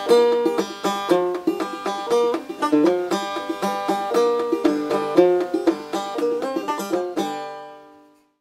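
Five-string banjo played clawhammer style: a quick, steady run of plucked notes that stops about seven seconds in, the last notes ringing out and fading away.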